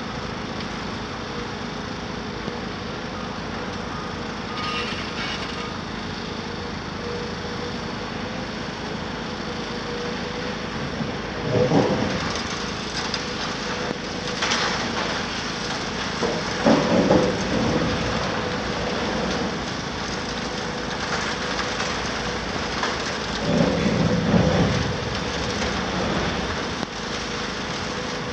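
CAT 374F UHD demolition excavator running steadily with a diesel and hydraulic hum, while its demolition jaw breaks up the concrete floors: four loud rumbling crashes of concrete and rubble falling, the longest near the end.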